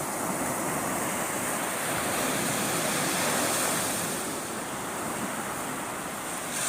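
Sea waves washing in, a steady rush that swells around the middle and eases off toward the end.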